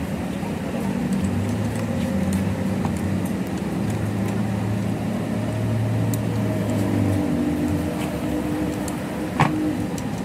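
A motor vehicle engine running steadily, a low hum that swells and fades a little. About nine seconds in, a single sharp metal click of a hand tool against the drive-shaft universal-joint yoke.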